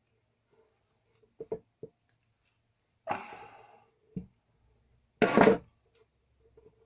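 Hand tools and metal parts being handled at close range: a few light clicks, a brief scraping rustle, a knock, then a louder sharp clack about five seconds in.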